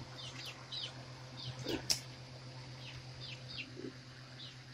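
Young chickens peeping: short, high-pitched chirps, a few a second, with a sharp click a little under two seconds in.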